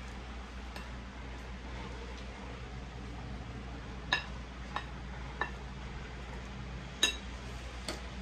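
Glass mixing bowl clinking as it is knocked while flour and grated green plantain are worked together in it: five sharp clinks, each ringing briefly, in the second half, over a steady low hum.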